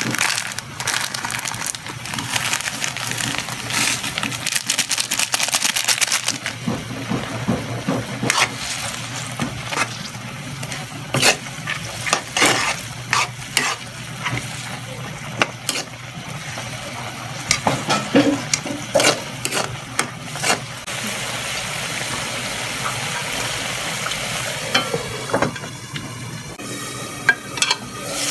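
Clams simmering and sizzling in a wok. Soda crackers are crumbled in by hand at first, then a metal ladle stirs, clicking and scraping against the pan and the clams. The last several seconds hold a steady sizzle.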